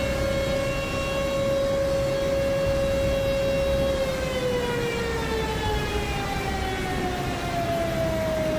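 A warning siren sounding a steady tone that, about halfway through, slowly winds down in pitch, heard over a constant rushing noise.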